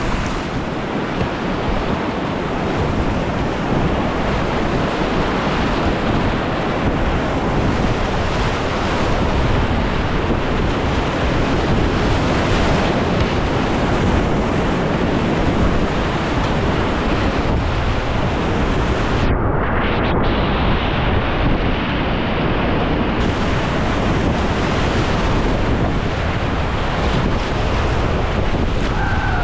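River rapids rushing steadily, with wind buffeting the microphone. About two-thirds of the way through, the hiss briefly goes duller.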